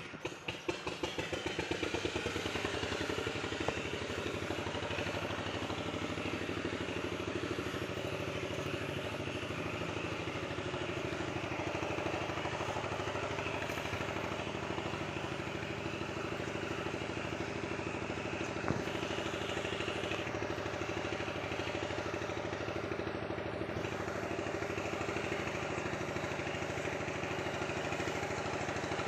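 A freshly repaired engine catches and picks up speed over the first couple of seconds, then runs steadily at an even speed.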